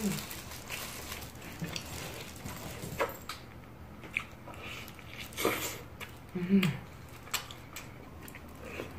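Eating sounds: biting and chewing meat off a large rib held in a plastic-gloved hand, with scattered small clicks from the dishes. A short low hum that falls in pitch comes about six and a half seconds in.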